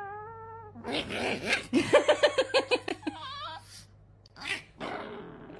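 Laughter: a quick run of breathy, pulsed 'ha-ha' bursts about a second in, between shorter wavering vocal sounds.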